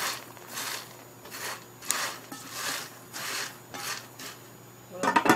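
Popped popcorn rustling and scraping in a pot as it is stirred with a plastic spoon, about two strokes a second, with a louder knock near the end.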